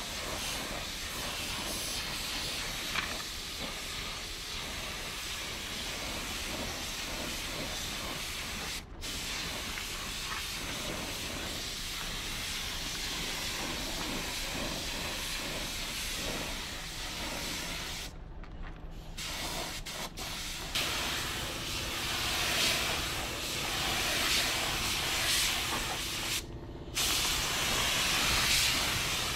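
Suction-feed compressed-air spray gun hissing steadily as it sprays paint. The hiss cuts off briefly about three times and is louder in the last third.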